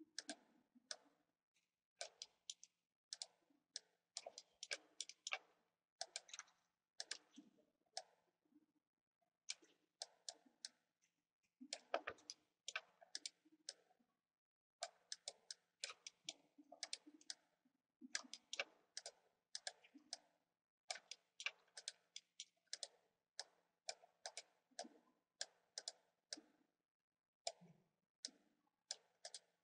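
Computer mouse buttons clicking faintly in quick irregular runs, with short pauses between the runs.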